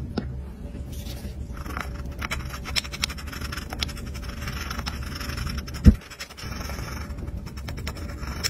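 A wooden stick scrubbing white rust-remover paste over a watch movement plate in a glass dish: a run of small scratches and scrapes. One loud dull thump comes about two-thirds of the way in.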